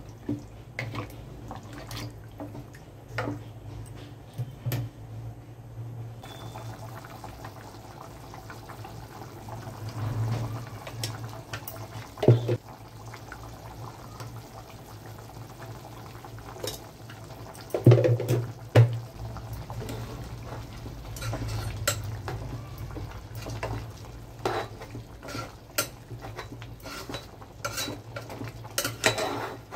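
Metal spoon stirring and scraping chicken in a wet spiced gravy inside an aluminium pot, with frequent clinks against the pot and a few louder knocks. A steady low hum runs underneath.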